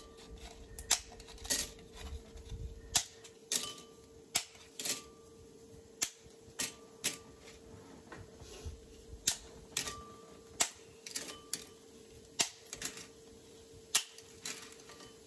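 Dry lasagna noodles being snapped into pieces by hand: sharp cracks, irregularly spaced, about one a second. A faint steady hum runs underneath.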